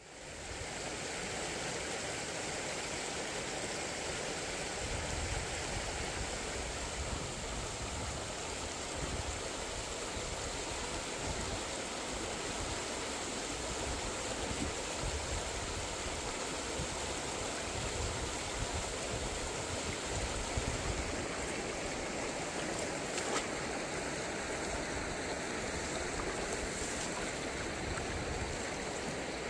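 Shallow stream running over rocks: a steady rush of flowing water. In the last few seconds, splashes as feet wade through shallow muddy water.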